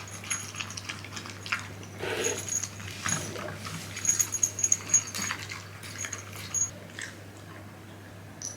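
A Shiba Inu and a black cat at play: scuffling and scattered clicks, with light metallic jingling clustered about four to five seconds in.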